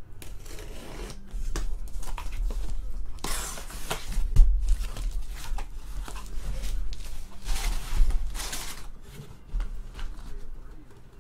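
A taped cardboard case box being slit open and its flaps pulled back, with repeated scraping and tearing of cardboard and tape. Sharp knocks come about four seconds in and again about eight seconds in, as things strike the table.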